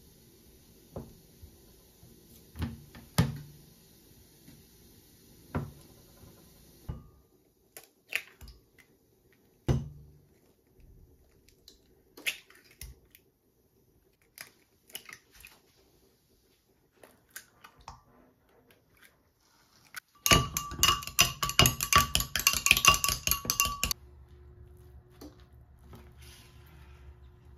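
Kitchen prep sounds: a few sharp knocks of a knife cutting through a block of canned ham onto a plastic cutting board, scattered light taps, then about four seconds of fast, continuous clinking as eggs are beaten in a glass measuring cup, the loudest part. A faint low hum sits under the start and end.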